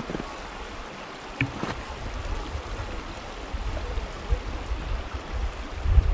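Outdoor ambience of a volcanic valley: a steady rushing hiss, with gusts of wind buffeting the microphone that grow stronger near the end, and a couple of faint clicks about a second and a half in.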